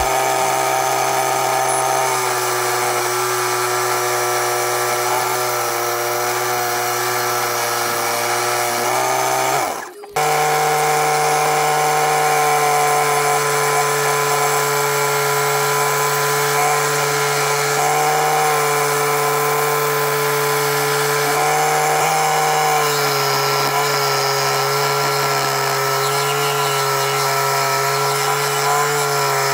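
Corded electric drill, mounted upside down as a table saw, running steadily to drive a reciprocating saw adapter whose blade saws through plywood and then a wooden batten. The motor gives a steady whine, which stops briefly about ten seconds in and then starts again.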